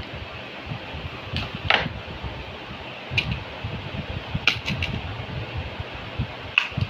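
Long-nose pliers squeezing a plastic nipple-drinker saddle clamp onto a PVC pipe, giving a handful of sharp clicks at irregular intervals, over a steady fan-like whir.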